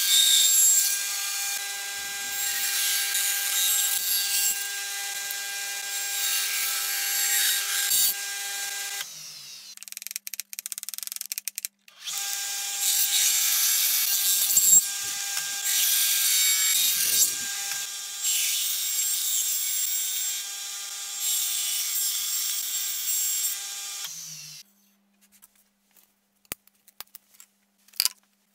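Table saw ripping thin wooden strips: a steady motor-and-blade whine under the noise of the cut. It stops about nine seconds in, starts again about three seconds later, and stops for good a few seconds before the end, leaving only a few light clicks.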